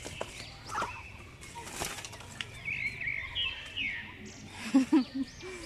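African lovebirds chirping, many short high arching chirps overlapping one another, with a brief rushing noise about two seconds in. Near the end come three short, louder, low-pitched sounds.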